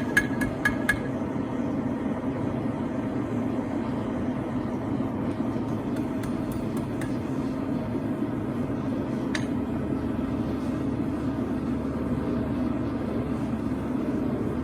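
Hammer blows ringing on hot steel at the anvil, about four quick strikes in the first second. Then the forge runs with a steady noise, broken by a few light metal taps and a single clink about nine seconds in.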